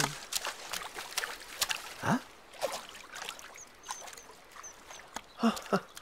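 Water splashing and trickling as a small swimmer paddles through a lake, in short irregular splashes. A short surprised voice cuts in about two seconds in, and a few faint high chirps come in the middle.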